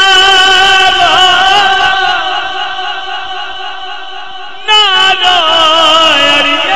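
A man singing Punjabi Sufi kalam in long, drawn-out notes that waver and slide. A phrase fades, and a new loud phrase starts about four and a half seconds in, stepping downward in pitch.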